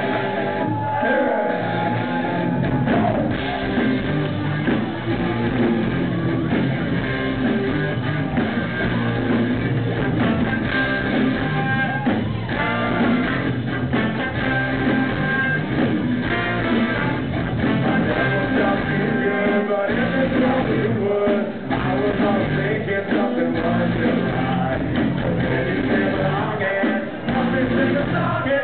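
Live ska-punk band playing loud through a venue PA, with electric guitars, bass, drums and trombone behind a singer, heard from the audience.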